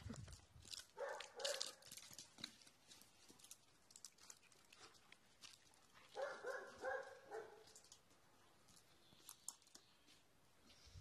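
Dog barking in short calls: a pair about a second in, then a quick run of four or five about six seconds in, with faint clicks in between.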